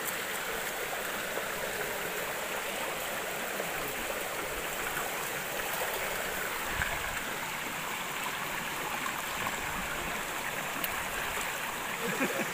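Mountain stream running over rocks in small cascades: a steady rush of water.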